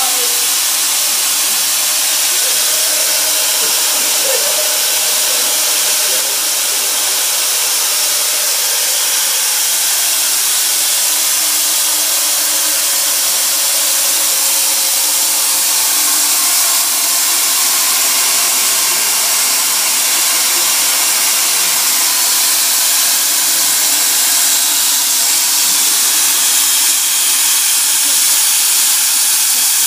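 Compressed air driving a 3D-printed plastic model turbofan engine, a loud steady hiss of air rushing through the engine as its fan and turbines spin.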